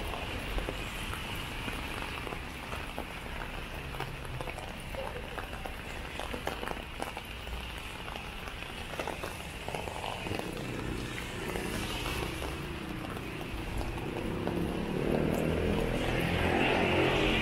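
Light rain pattering on an umbrella in many small ticks, over the steady hiss of traffic on a wet road. A vehicle's engine grows louder through the second half and is loudest near the end.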